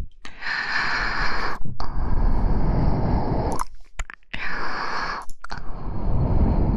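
Breath blown into a close microphone: two long exhales of about three seconds each, with short clicks in the gap between them.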